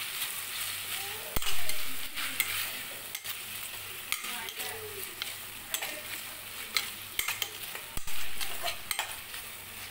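Metal spatula stirring and scraping chopped vegetables frying in oil in an aluminium pressure cooker: a steady sizzle with frequent clicks and scrapes of metal on the pan. There are two louder knocks, one about a second and a half in and one near the end.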